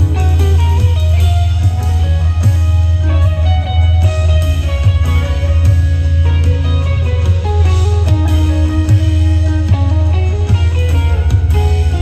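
Live rock band playing an instrumental passage: an electric guitar, here a twelve-string, picks a changing melodic line over a heavy, steady low bass.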